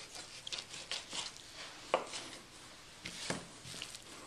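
Knife slicing and scraping through thick fat on a raw beef brisket against a cutting board, in short uneven strokes, with two sharp knocks, about two seconds in and just after three seconds.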